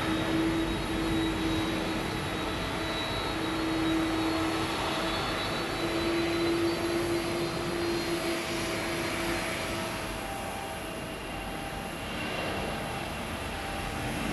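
Airbus A321neo's twin jet engines at takeoff thrust through the takeoff roll and liftoff: a steady roar with a held whine, easing off a little as the airliner climbs away.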